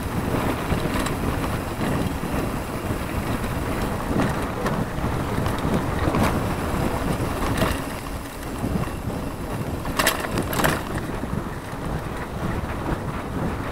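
Mountain bike rolling fast downhill on a dirt track: wind buffeting the onboard camera's microphone over the rumble of the tyres on the dirt, with scattered rattles and knocks from the bumps. Two sharp clatters come about ten seconds in.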